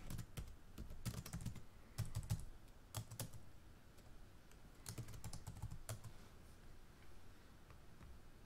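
Quiet typing on a computer keyboard: irregular keystrokes in short runs, with pauses between them.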